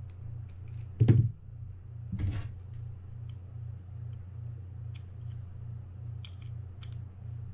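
Small screwdriver working the side-cover screws of a Quantum Catalyst 40 spinning reel: light metal clicks and scrapes, with a louder knock about a second in and a smaller one soon after. A steady low hum runs underneath.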